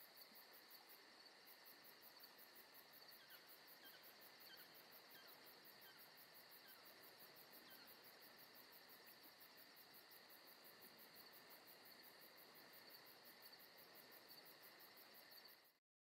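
Faint insect chorus: a steady, evenly pulsing high trill of crickets, with a few faint falling chirps a few seconds in. It cuts off suddenly just before the end.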